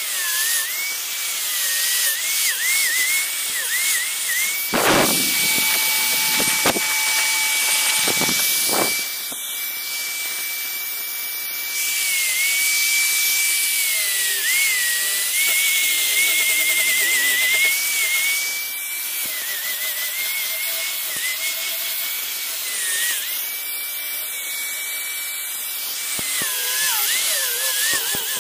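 Handheld angle grinder with a sanding disc running and sanding carved teak wood: a high motor whine that holds steady and dips in pitch whenever the disc is pressed into the wood, over the hiss of abrasion. Several sharp knocks come between about five and nine seconds in.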